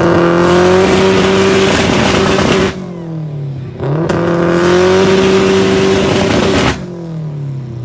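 A car engine revved hard through its exhaust and held at high revs for about three seconds, dropped back briefly, then revved and held high again for about three seconds before falling back to idle.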